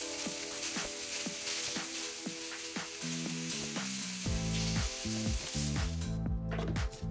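Seasoned chicken breast pieces sizzling on a hot flat griddle, a dense steady hiss that stops about six seconds in.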